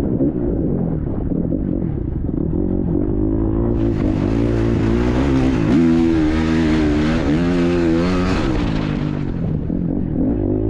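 KTM off-road motorcycle engine revving hard as it is ridden, its pitch rising and falling again and again with throttle and gear changes. The sound is muffled for the first few seconds and turns clearer and brighter about four seconds in.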